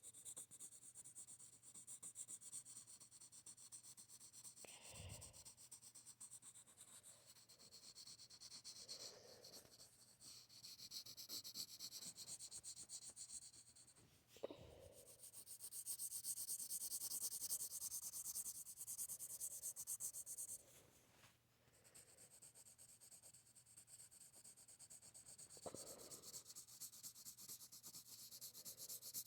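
Faint, continuous scratchy rubbing of shading strokes being drawn on paper, growing louder in the middle and pausing briefly, with a couple of soft knocks.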